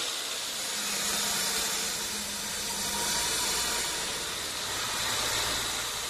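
Band sawmill running: a steady hiss over a low hum.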